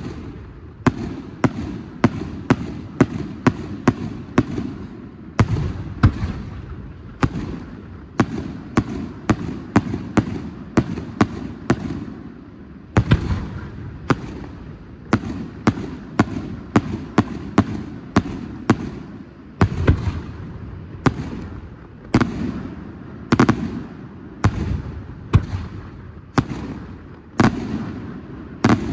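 Fireworks display: a rapid, irregular string of sharp bangs as shells burst, about one or two a second, with a low rumbling echo between them.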